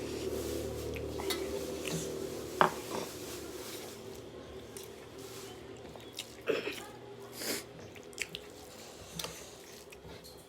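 Eating sounds of a person eating rice and curry by hand from a plate: chewing, soft handling, and a few sharp clicks against the plate, the loudest about a third of the way in. A steady low hum runs under the first half.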